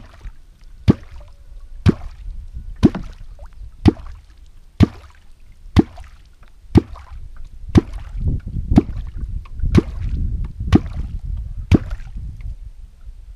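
Perm kvok (a catfish call) struck into the water about once a second. It gives a dozen sharp 'kvok' pops with gurgling water between them, and the water noise grows heavier in the later strokes before the strokes stop near the end. The sound is made to draw catfish up to the bait.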